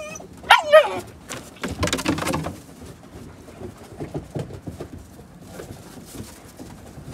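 German shepherd–husky mix puppies vocalizing while they play-fight: a loud, high, wavering yelp about half a second in, then a harsher, noisier bark around two seconds. Softer scuffling and small noises follow.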